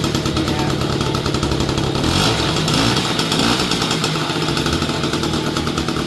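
Peugeot 103 moped's small two-stroke single-cylinder engine running just after a pedal start, with a rapid buzzing beat, picking up a little around two to three seconds in.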